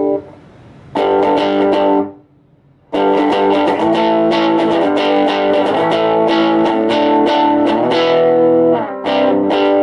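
Electric guitar played through a small budget tube guitar amplifier, being play-tested after repair: strummed chords that ring and stop, a pause of about a second, then a run of strummed chords and picked notes. The amp sounds clean, with no hum.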